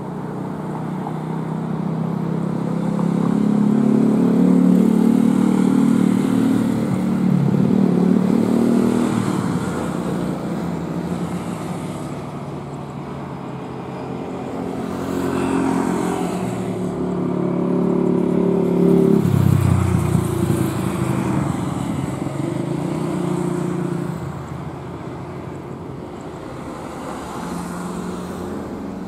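Engine noise that swells and fades twice, with a sudden drop in pitch about twenty seconds in.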